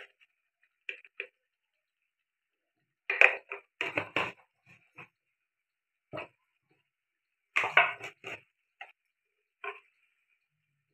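Thick masala gravy simmering in an iron kadai, giving a few short pops and plops. They come singly and in two small clusters, about three seconds and eight seconds in.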